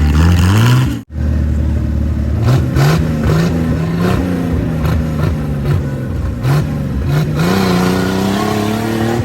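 Off-road racing vehicle's engine revving, its pitch rising and falling with the throttle and climbing again near the end. The sound cuts out sharply for a moment about a second in.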